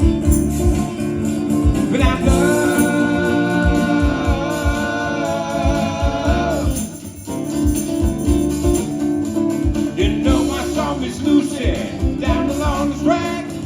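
A live band playing a song: a singer over guitar and a steady drum beat. The singer holds one long wavering note from about two seconds in, the music thins out briefly near the middle, then the singing picks up again over the beat.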